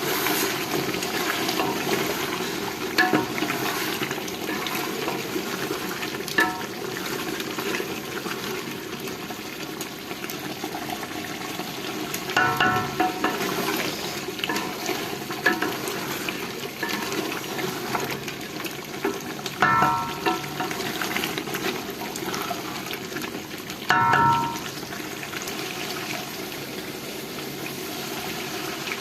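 Chicken and potato curry cooking in a pot with a steady sizzling hiss, and a metal spoon stirring and clinking against the pot several times.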